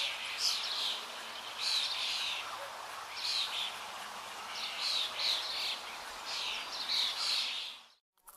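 Birds chirping in short calls, repeated every half second to a second, over a steady hiss. The sound cuts off abruptly about eight seconds in.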